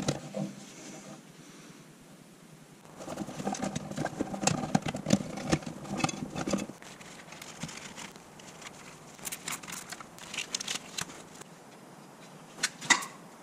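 Handling noise from routing an air-suspension air line by hand: a few seconds of rustling and crackling in the middle, then scattered clicks, with two sharp clicks near the end.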